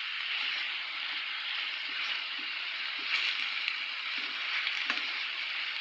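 Diced chicken breast sizzling steadily as it fries in hot oil in a pot. A spoon stirs it, with light scrapes and taps against the pot now and then.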